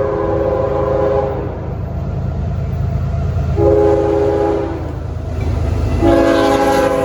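Freight locomotive's air horn sounding a chord in a grade-crossing pattern: a long blast ending about a second in, a short blast, then another long blast near the end whose pitch begins to drop as it passes, over the steady low rumble of the train.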